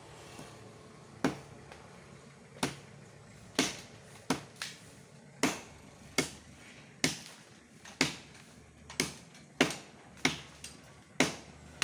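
Steady chopping into the wood of a santol tree with a hand-held blade: about a dozen sharp knocks, roughly one every three quarters of a second, starting about a second in.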